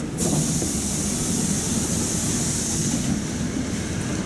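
Inside a metro train car stopped at a station: a sharp hiss of air starts abruptly and lasts about three seconds, then fades, over a steady low rumble.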